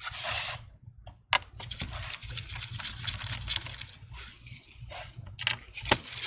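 Small handling noises from a Phillips screwdriver taking out the screws that hold a laptop's LCD panel: light scraping and rattling, with a sharp click about a second in and a few more clicks near the end.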